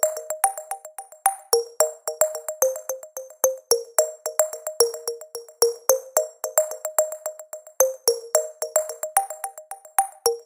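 Background music: a light electronic track of short, plucked synthesizer notes over a steady drum-machine beat.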